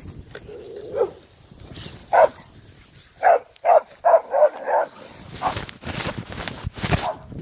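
Dogs barking in a string of about nine short, irregular barks, several in quick succession around the middle, set off by someone approaching. A brief rustle of handling noise comes partway through.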